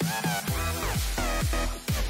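Background electronic dance music with a steady kick drum and synth chords.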